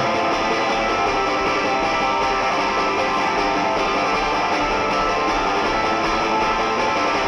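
Band music in an instrumental passage: sustained, dense electric guitar chords with bass and drums.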